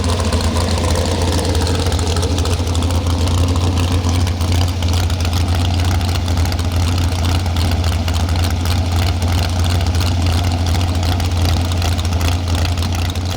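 Pro stock pulling truck's engine running loud and steady, with a heavy low drone.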